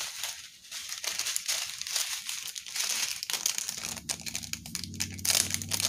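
Clear plastic bags of diamond painting gems crinkling as they are handled, quick crackles throughout. A low steady hum comes in about four seconds in.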